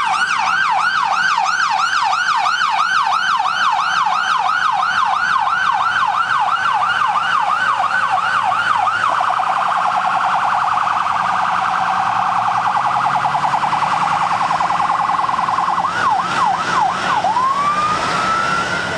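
Emergency vehicle's electronic siren sounding loudly, first in yelp mode with quick rising-and-falling sweeps about two and a half times a second, then switching about halfway to a much faster warble. A few yelp sweeps return, and near the end it goes into a slow rising wail.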